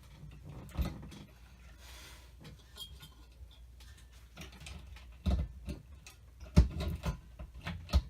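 Scattered knocks and clicks as a ceiling fan's motor housing is handled and hung on its mounting bracket, with a cluster of sharper knocks in the second half, the loudest about six and a half seconds in.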